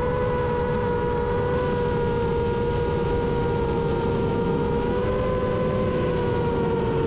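Long-range 7-inch FPV quadcopter's brushless motors and propellers whining steadily in cruise flight: a high hum with overtones that holds a nearly even pitch, over rushing wind noise.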